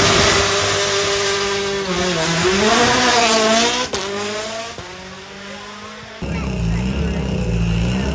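Hyundai i20 N Rally1 rally car's turbocharged four-cylinder engine launching from the start line and accelerating away, its pitch rising and falling through gear changes before fading after about four seconds. About six seconds in, the next car's engine cuts in suddenly, idling with a low steady note.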